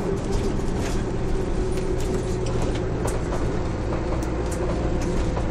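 Mercedes-Benz OM447hA straight-six turbodiesel and ZF 4HP590 automatic gearbox of a Jelcz M122MB city bus running steadily, a low drone with a held whining tone over it. Light clicks and rattles come and go throughout.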